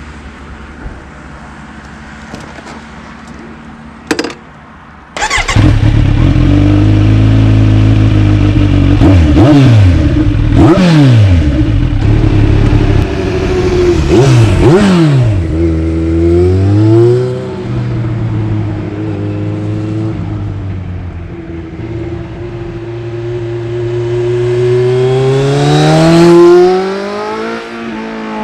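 Kawasaki Z900 inline-four through a MIVV Double Gun exhaust, starting up about five seconds in after a faint click and settling to idle. It is then blipped several times in sharp revs, followed by longer rises and falls in engine speed, the highest rev peaking near the end.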